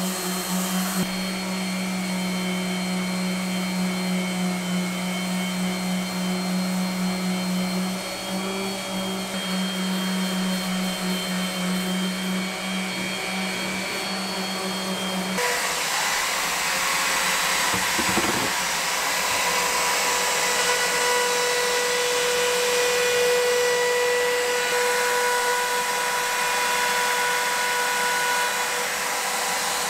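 A random orbit sander with a dust-extraction hose attached runs steadily against a wooden chopping board. About halfway through, the sound changes abruptly to the higher-pitched steady whine of a router cutting along the board's edge with a bearing-guided bit.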